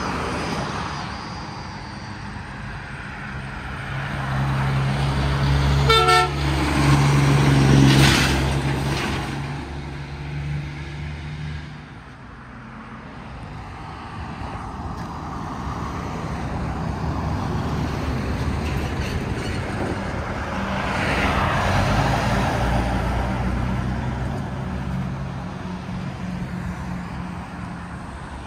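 Heavy diesel trucks passing on a street: the first runs with a steady deep engine note and gives a short horn toot about six seconds in, passing loudest a couple of seconds later. A second truck's engine builds and passes later on.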